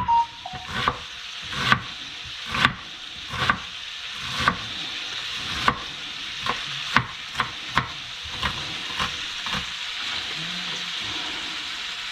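Knife chopping onion on a cutting board, about one chop a second at first, then lighter and quicker, over the steady sizzle of bacon frying in oil and butter in a pan.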